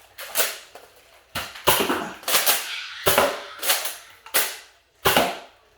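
Nerf dart blasters firing: about eight sharp snaps at uneven intervals, each with a short ringing tail.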